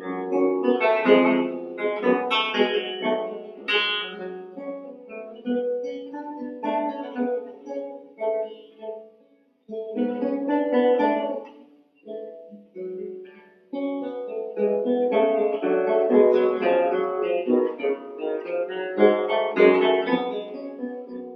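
Instrumental background music led by a plucked guitar, dropping out briefly a few times midway.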